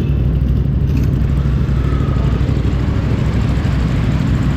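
Motorcycle engine running at a steady pace.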